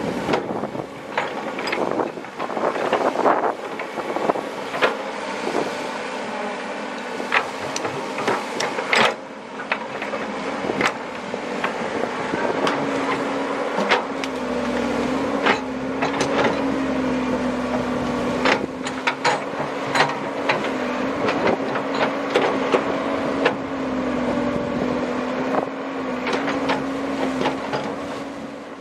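Komatsu PC130 hydraulic excavator's diesel engine running under load, its pitch wavering up and down as it works, with frequent sharp knocks and clanks.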